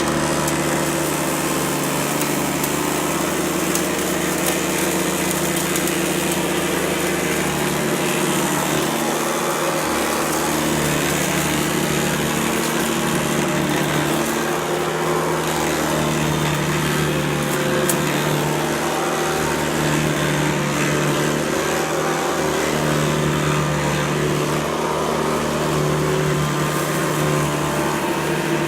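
Hoover Guardsman upright vacuum cleaner running steadily. Its motor hum shifts slightly in pitch now and then.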